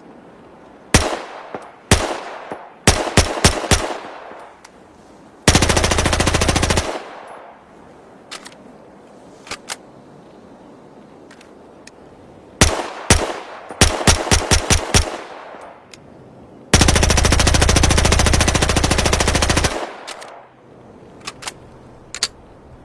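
FN P90 TR submachine gun firing: two single shots, a quick string of about five, then a full-auto burst of about a second and a half; the pattern repeats with a longer full-auto burst of about three seconds. A few faint clicks fall between the strings and near the end.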